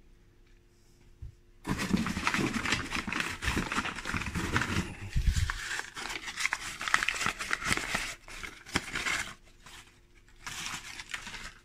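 Packing paper crinkling and rustling in long spells as a paper-wrapped aquarium stone is handled and unwrapped, with a dull thump about five seconds in. A shorter burst of rustling comes near the end.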